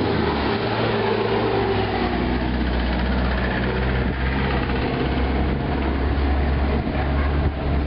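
A heavy engine running steadily with a low drone, like a large vehicle idling close by.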